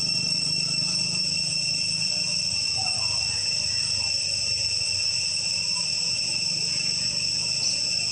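Steady chorus of insects in the trees: a continuous high-pitched drone that holds several even pitches without a break.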